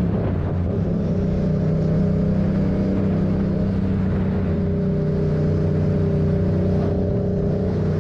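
Dirt bike engine running at a steady speed while riding, its even hum holding one pitch, over road and wind noise.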